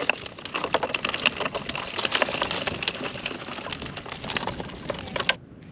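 Live yabbies clattering as a wet mesh net full of them is shaken out into a plastic esky: a dense crackle of shells and claws tapping on plastic and mesh, cutting off suddenly just before the end.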